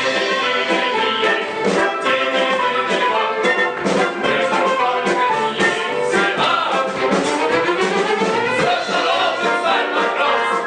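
Orchestra playing an instrumental passage with brass to the fore, a long rising run in its second half.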